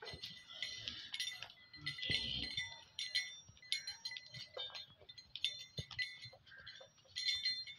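Small metal bells on a cow's decorated neck harness jingling irregularly as the cow moves.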